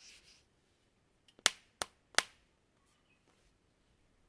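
Three sharp clicks about a third of a second apart, the middle one softer, after a brief soft rustle.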